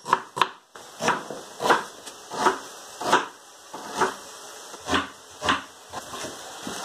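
Kitchen knife chopping a red onion on a wooden cutting board: about ten separate cuts, roughly one every two-thirds of a second.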